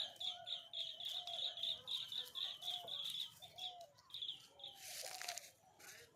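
Chickens calling: a rapid, even run of high chirps, about four or five a second, over short lower calls, with a brief rustle near the end.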